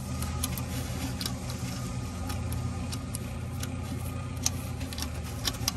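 Gloved hands pressing and smoothing epoxy putty inside a plastic pool-pump housing, making faint scattered clicks and rubbing sounds over a steady low machine hum.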